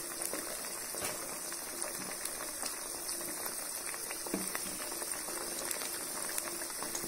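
Potato sticks deep-frying in hot rice bran oil: a steady bubbling sizzle full of small crackles and pops.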